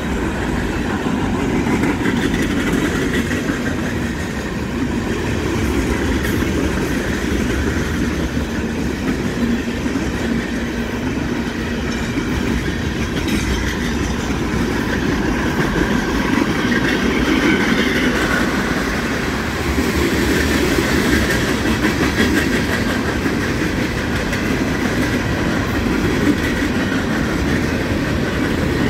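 Union Pacific mixed freight train's cars rolling steadily past: a continuous rumble and clatter of steel wheels on the rails.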